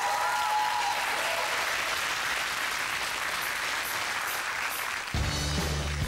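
Studio audience applauding. About five seconds in, the band starts playing, with bass and drums coming in under the clapping.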